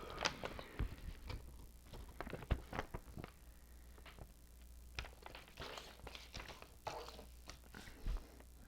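Faint handling noises: scattered light taps and clicks with brief rustling, as the objects on the table and the paper owner's manual are moved about and picked up.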